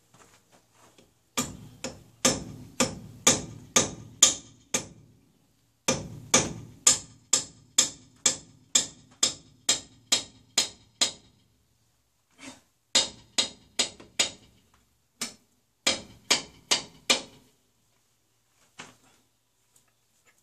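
Hammer striking the handle of a wrench on a tractor's rear wheel nuts to break them loose: sharp metal-on-metal blows about two a second, in four runs with short pauses, and a couple of light taps near the end.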